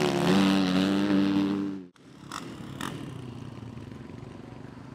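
Motocross bike engine running hard at a high, steady pitch, cut off abruptly about two seconds in. After that there is a much quieter steady background with two short sharp knocks.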